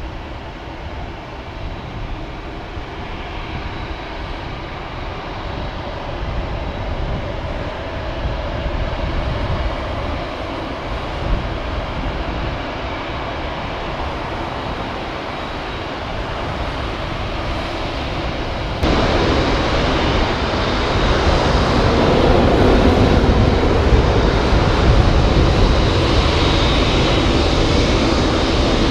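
Boeing 747-8's four GEnx turbofan jet engines running as the airliner moves on the ground before take-off. It is a steady jet noise with a faint high whine that grows gradually, then turns abruptly louder about two-thirds of the way through.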